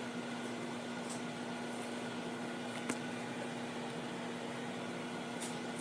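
Whirlpool microwave oven running with a steady hum, with one faint click about three seconds in.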